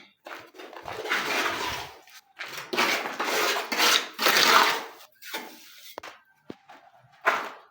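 A steel trowel scraping cement mortar during wall patching: three long, rough scraping strokes in the first five seconds, then fainter scrapes and light knocks.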